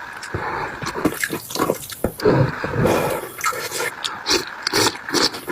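Close-miked eating: irregular wet chewing, smacking and slurping.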